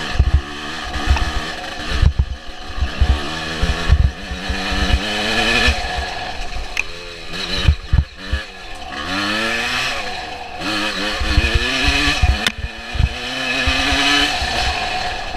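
Suzuki PE175 two-stroke single-cylinder engine revving hard, its pitch rising and falling again and again as the rider works the throttle, with many low thumps underneath as the bike rides over the rocky trail.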